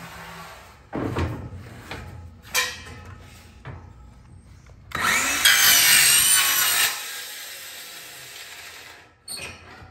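Yellow cordless handheld power saw cutting through metal railing spindles: short bursts about 1 and 2.5 seconds in, then a longer, louder cut with a high whine from about 5 to 7 seconds in.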